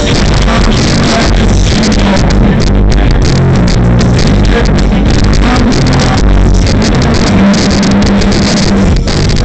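Live band music played loud through a PA system, with heavy bass and a steady beat, recorded at poor quality.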